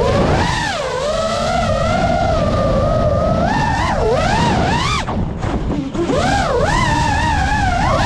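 FPV freestyle quadcopter's motors and propellers whining, the pitch rising and falling constantly with the throttle as it banks and turns. About five seconds in, the whine drops sharply for about a second as the throttle is cut, then climbs back, with wind rumble underneath.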